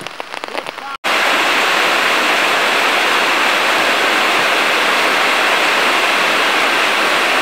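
Heavy rain falling as a loud, steady, even hiss that starts abruptly about a second in.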